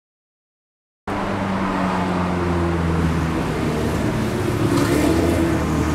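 Street traffic noise cutting in suddenly about a second in, dominated by the steady hum of a motor vehicle's engine running.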